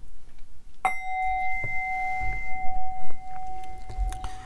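A metal bowl bell, singing-bowl type, struck once about a second in and left ringing with a steady two-note hum, the higher note dying away first. Faint knocks sound underneath.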